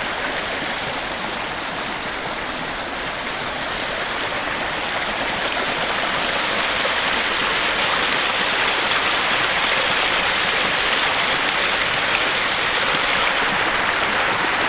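Small forest brook running and splashing over stones: a steady rush of water that grows louder from about five seconds in, where the water tumbles down a short rocky cascade.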